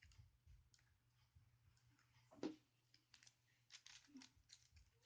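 Faint handling noises: small scattered clicks and taps from hands working on an open laptop's screen assembly, with one louder knock about halfway through.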